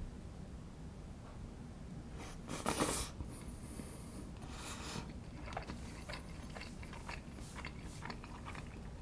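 Someone eating. There are two short rustling bursts, and from about halfway through come chewing sounds with scattered light clicks.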